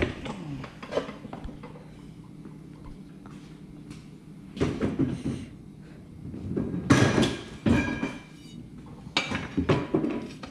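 Hand tools clanking and scraping against a steel wheel rim as a tire is levered onto it by hand, in three short bursts of knocks and scrapes, the middle one with a brief metallic ring.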